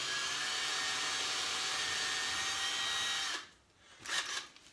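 Cordless drill running steadily with an auger-type wood bit, slowly boring a 1/4 inch hole through drywall, stopping suddenly about three and a half seconds in. A few faint handling knocks follow as the bit is pulled out.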